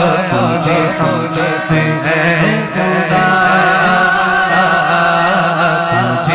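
A man singing a naat (Urdu devotional song) into a microphone, drawing out long wavering held notes without clear words.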